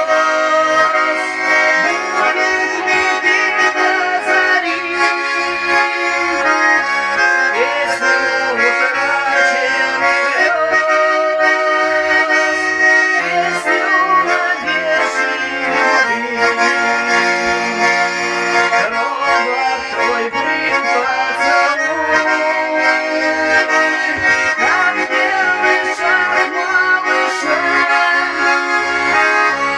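Russian garmon (button accordion) playing an instrumental passage: a melody in the right hand over a steady oom-pah rhythm of bass and chord buttons.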